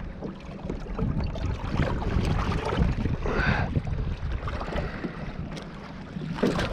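Wind buffeting the microphone in an open fishing boat, with scattered knocks and rattles as a caught fish is worked out of a landing net by hand.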